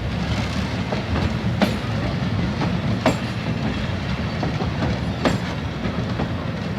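Steam train rolling along the track: a steady low rumble, with a sharp wheel click over the rail joints every second or two.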